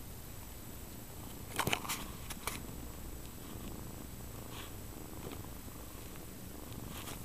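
Mother cat purring steadily, a low continuous rumble, as she nurses her kittens. A few sharp clicks come near two seconds in.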